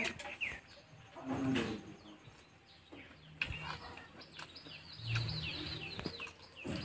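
Small birds chirping: a quick run of short, high, falling chirps, several a second, from about halfway through to near the end. Faint clicks and smacks of eating by hand from a banana leaf come between them.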